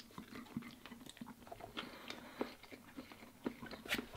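A person chewing a mouthful of instant noodles, with faint, irregular wet mouth clicks and a few sharper clicks near the end.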